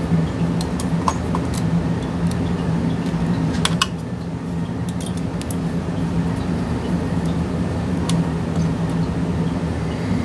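Steady fan hum with a low drone, under a few light metallic clicks and taps of small screws and a screwdriver as a graphics card is unscrewed.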